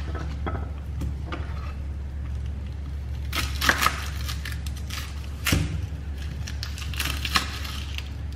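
Chef's knife slicing a red onion on a wooden cutting board: irregular cutting strokes and knocks of the blade on the board, the heaviest about three and a half and five and a half seconds in, over a steady low hum.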